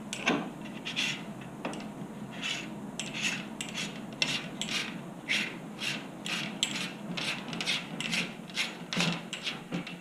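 Short, irregular rubbing and scraping strokes, about two a second, as a hand turns the cap at the top of a DR-Z400 motorcycle fork tube, threading it in by hand: skin sliding and regripping on the steel tube.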